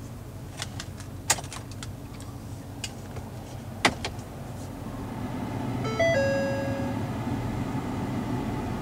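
Inside the cab of a 6.2-litre V8 Ford F-250, with the engine idling, there are a few sharp clicks. About six seconds in, an electronic dash chime steps quickly through a few pitches and then holds one note for about a second, as reverse is selected and the rear-view camera display comes up.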